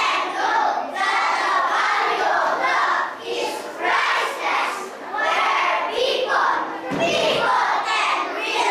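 A group of young children reciting in unison in a choral reading, their voices in phrases of a second or two with short breaks between them.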